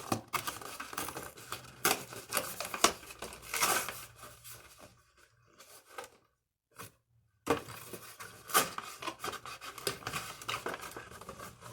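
Toy packaging being handled and opened: a run of irregular rustling, tearing and clicking sounds, with a pause of about two seconds in the middle.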